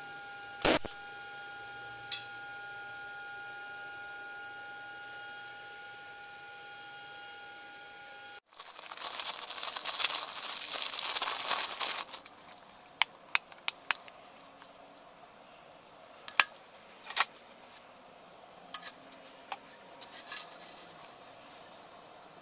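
Steady high-pitched electrical whine from an inverter welding machine, with two sharp clicks. Then plastic packaging crinkles and tears loudly for about three seconds as a part is unwrapped, followed by scattered light clicks and rattles of metal parts and a roller chain being handled.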